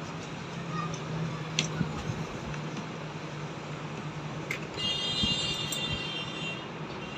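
Small metal parts and tools being handled during reassembly: a couple of light clicks, then a short metallic ringing about five seconds in, over a steady low hum.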